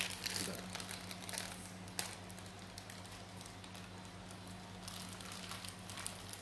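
Thin plastic bag of soup broth crinkling and crackling in the hand as it is opened and tipped, with broth trickling into a plastic bowl of noodles toward the end. A steady low hum runs underneath.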